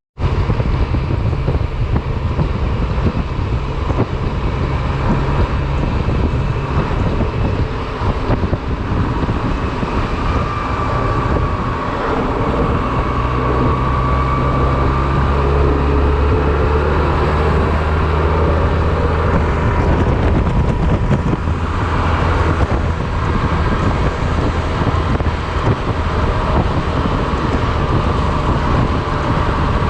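Honda Silver Wing maxi-scooter under way: the engine runs steadily under heavy wind and road noise on the camera microphone.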